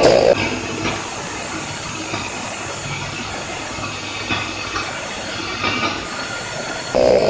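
Stick (SMAW) welding arc on steel, a steady crackling hiss with brief sharper flares. A louder buzz is heard in the first half second.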